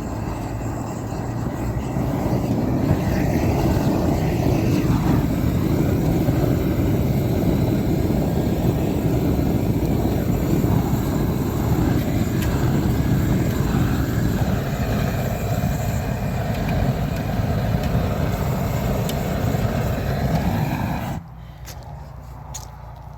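A steady, loud rushing roar that cuts off suddenly near the end, leaving a quieter background with a few faint clicks.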